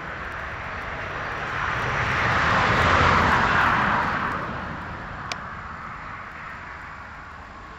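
A passing vehicle: its noise swells to a peak about three seconds in and then fades away.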